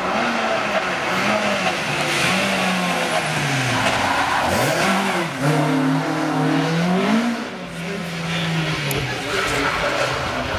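Rally car engine, a Mk1 Ford Escort, working hard through a tight hairpin. Its revs fall and climb several times as it brakes, changes gear and accelerates away: a sharp drop about four seconds in, a climb, another drop, then a rise again near the end.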